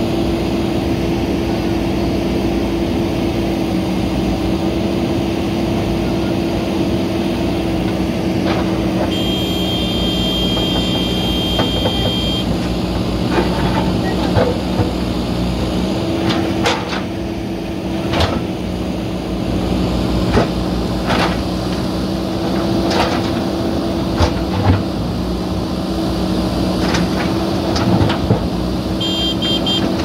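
JCB 3DX backhoe loaders' diesel engines running steadily as the backhoes dig. In the second half there are repeated sharp knocks and clanks from the buckets striking broken concrete and stone. About nine seconds in a high whine lasts a few seconds.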